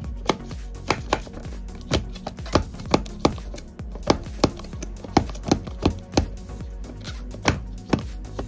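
Repeated sharp knocks and taps, irregular, about two a second, as the plastic packaging of a Barbie Pop Reveal doll is jabbed to puncture it. Steady background music plays underneath.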